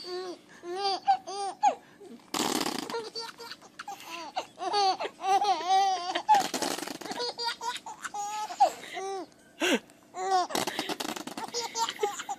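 A baby laughing in repeated strings of short giggles. Between the fits come three short bursts of crinkling from a plastic-wrapped squishy toy being squeezed.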